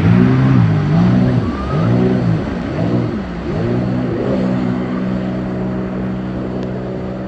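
A motor engine revving up and down several times, then settling into a steady drone about four and a half seconds in.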